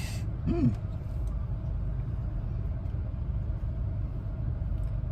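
Steady low road and engine rumble heard inside a moving car's cabin, with a brief rising-and-falling sound like a short 'hm' about half a second in.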